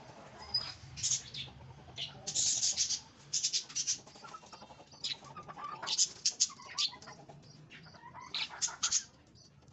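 Pigeons at a feeding spot: repeated clusters of short, sharp, high-pitched sounds of birds moving and calling, some sounding like flapping wings.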